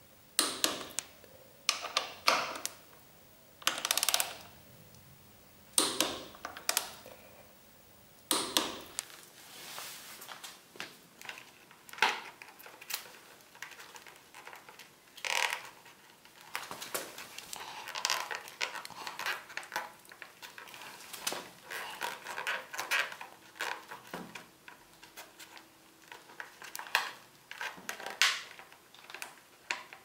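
Ratchet torque wrench clicking and ratcheting on the motorcycle's front brake caliper mounting bolts, sharp clicks every second or two in the first several seconds. After that come many small metallic clinks, taps and rattles of parts and tools being handled at the front fork and fender.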